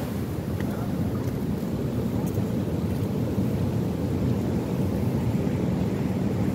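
Steady low rumble of wind buffeting the microphone, over the wash of the sea.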